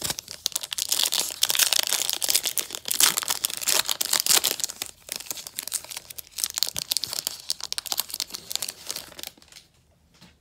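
Foil wrapper of an Illusions football trading card pack crinkling and tearing as it is opened: a dense, crackling rustle that is loudest in the first half and dies away near the end.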